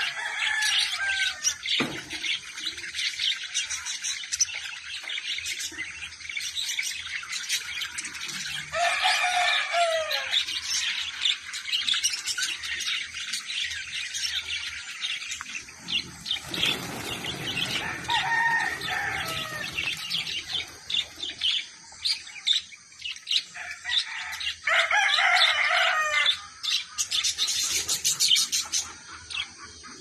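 A flock of caged budgerigars chattering and chirping continuously. Two longer, lower calls stand out, about nine and twenty-five seconds in.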